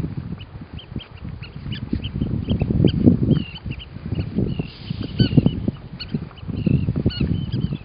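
Weddell seal calling in its sleep: many short, high chirps and trills follow each other, over a low, uneven rumble.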